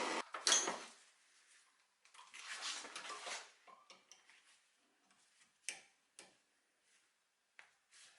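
A steady machine noise cuts off, followed by a sharp metallic clink, a short scraping slide about two seconds in, and a few scattered small clicks of hard objects being handled.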